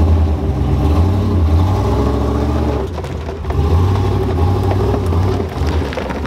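Lifted Chevrolet Silverado pickup's engine running under load as the truck drives across grass, easing off briefly about halfway and then pulling again.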